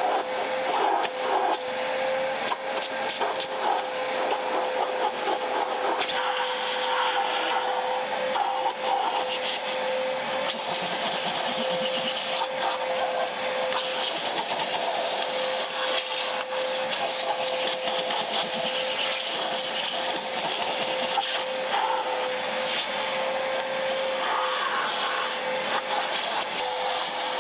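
Vacuum cleaner running with a steady whine and rushing air, with scraping and clicking against surfaces.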